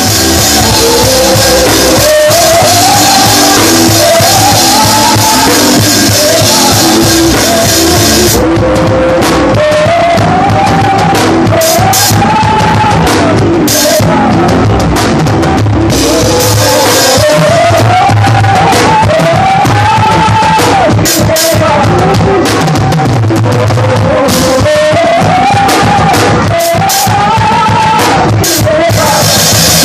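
Live church worship music led by a drum kit: a dense cymbal wash for the first eight seconds or so, then separate cymbal and drum hits, with a melody sung over it in repeating rising-and-falling phrases.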